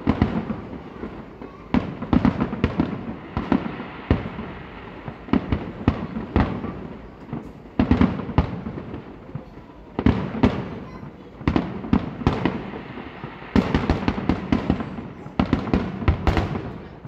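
Aerial fireworks bursting in quick succession: sharp bangs over a continuous rumble and crackle, thickening into a dense barrage near the end.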